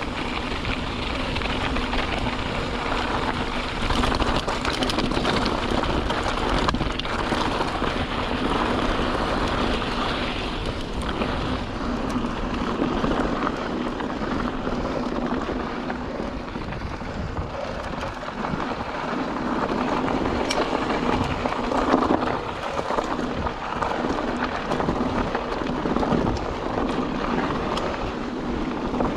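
YT Capra 29 mountain bike riding down a dirt trail: tyres rolling over dirt and rocks, with frequent knocks and rattles from the bike, and wind on the microphone.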